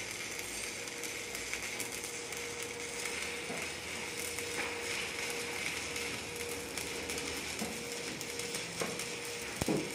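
Shielded metal arc (stick) welding: the flux-coated electrode's arc crackles and sizzles steadily as a bead is run, with a faint steady hum underneath and a single sharp knock near the end.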